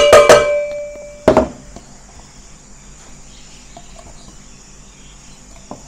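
A plastic blender jar knocked against the rim of a stainless steel mixing bowl to shake out ground shrimp: three quick knocks at the start, the bowl ringing briefly, and one more knock about a second later.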